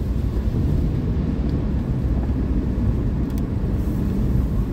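Steady low rumble of road and tyre noise inside a car's cabin while driving at highway speed on rain-wet pavement.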